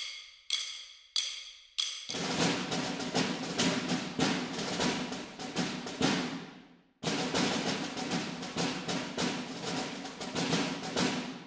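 Intro music: four ringing chime-like notes, then a fast rhythmic passage of drums and percussion that stops briefly about seven seconds in and then resumes.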